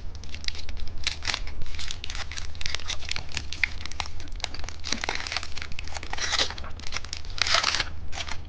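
Candy packaging being torn open and crinkled by hand: a dense run of rapid crackles, with louder rustling bursts about six and seven and a half seconds in. A steady low hum lies underneath.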